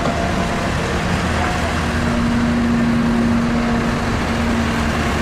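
Caterpillar tracked excavator's diesel engine running under load as the machine climbs a steel ramp, with a steady hum that grows stronger about two seconds in.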